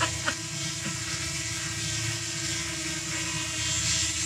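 Small quadcopter drone hovering close overhead, its propellers giving a steady multi-tone whine. Two short clicks come right at the start.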